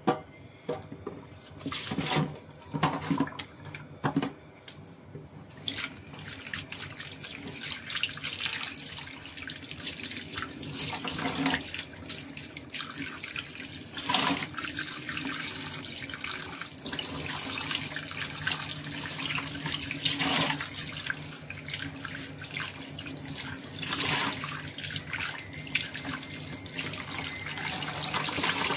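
Tap water running into a stainless-steel kitchen sink and plastic basin as peeled shrimp are rinsed by hand, with splashing. The water starts about five seconds in, after a few clicks and knocks.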